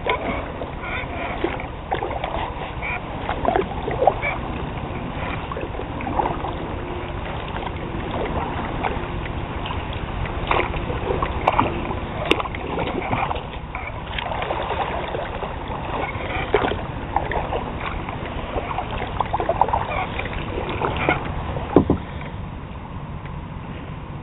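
Kayak being paddled on calm river water: irregular paddle splashes and light knocks over a steady low rumble.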